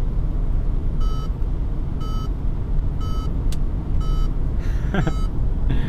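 A Peugeot 208's driver-assist warning chime beeping about once a second, over steady engine and tyre noise heard inside the cabin at highway speed, with a single sharp click about halfway through.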